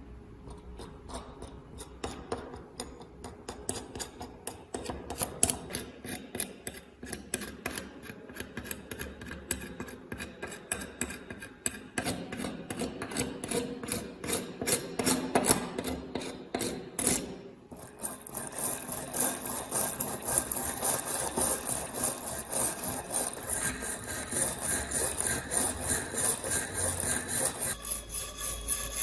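Rhythmic back-and-forth strokes of hand abrasive work on the knife, filing or sanding, a few strokes a second. About two-thirds of the way through the strokes get louder and the scrape turns higher and hissier.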